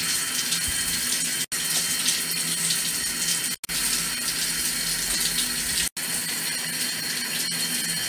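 Shower water running steadily, a continuous hiss of spray, broken three times by a brief silent gap.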